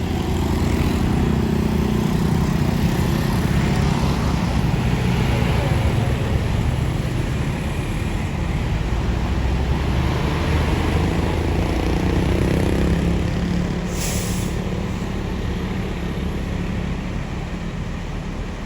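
Large coach's diesel engine running close by, a steady low hum that shifts slightly in pitch. A short, sharp hiss of air comes about fourteen seconds in.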